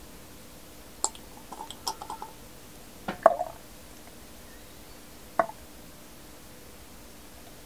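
Scattered small clicks and taps of a pipette being worked in the bung hole of a small wooden whisky barrel to draw a sample. The loudest tap comes about three seconds in, and a last one about five and a half seconds in.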